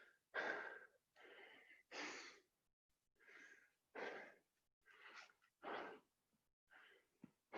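A person breathing hard and fast, about one loud, wheezy breath a second, out of breath from doing burpees.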